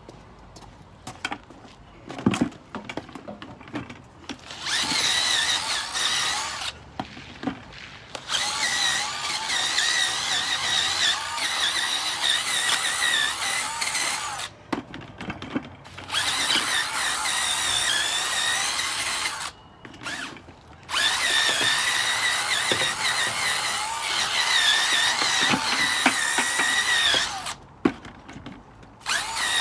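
Power drill spinning a brush attachment to scrub a car tyre, a steady motor whine in several runs of a few seconds each, with short pauses between them.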